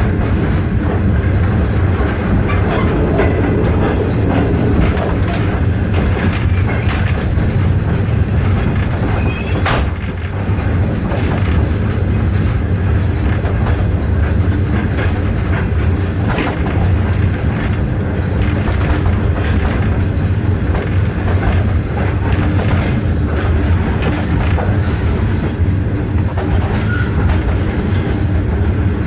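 A moving passenger train heard from inside a carriage: a steady low rumble with wheels clicking over the rail joints throughout.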